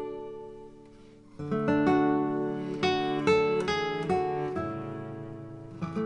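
Background music on acoustic guitar, plucked and strummed. It fades low over the first second or so, then comes back in with a fuller run of notes about a second and a half in.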